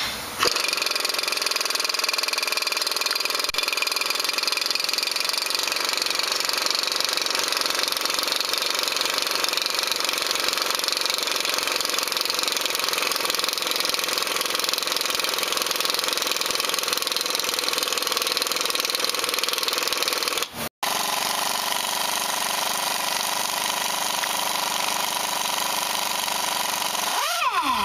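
A power tool running steadily, a continuous mechanical whine with several held tones. It breaks off about 21 seconds in and resumes at a slightly different pitch.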